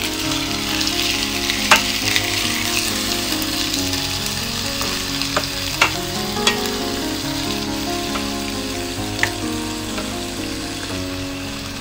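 Pork leg slices sizzling in hot oil as they brown in a nonstick pan, with a steady hiss. A wooden spoon stirs and knocks against the pan a few times. Soft background music plays underneath.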